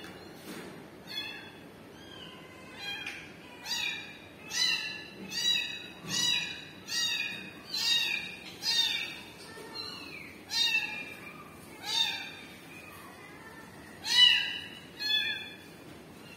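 Kitten mewing over and over, a quick run of high-pitched cries about one a second, loudest near the end. These are the distress calls of a kitten crying for its mother cat.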